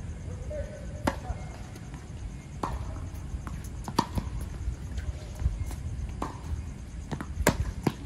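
Tennis serve struck about a second in, then a rally: sharp pops of racket strings hitting the ball and the ball bouncing on the hard court, roughly every second or two, the loudest near the end. A steady low rumble runs underneath.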